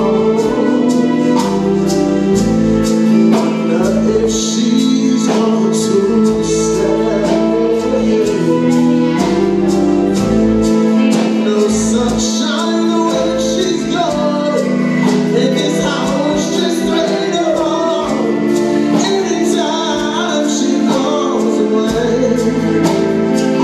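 Live R&B band playing a song: drums keep a steady beat under bass, electric guitars, congas and keyboard, with singing over the top.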